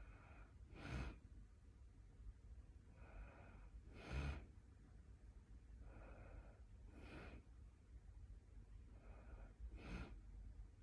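Quiet, regular snoring of a sleeper: four breath cycles about three seconds apart, each a soft breath followed by a louder, rougher one. The owner wonders whether this snoring is a sign of sleep apnea.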